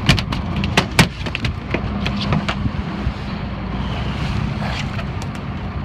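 Boat engine idling with a steady low hum, under wind and water noise. Sharp knocks and clicks, mostly in the first second or two.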